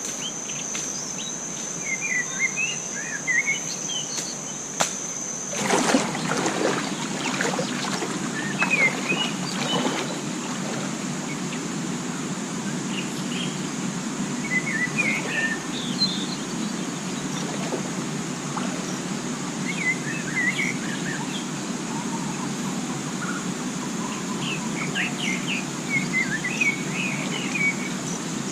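Forest ambience: birds chirping in short scattered calls, and a steady high-pitched insect drone that cuts off about six seconds in. A few knocks and rustles come soon after the drone stops.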